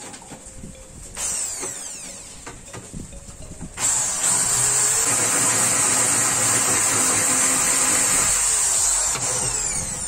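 Electric hand drill drilling into a black plastic washing-machine control panel: a brief spin-up about a second in, then a steady run for about five seconds, winding down near the end.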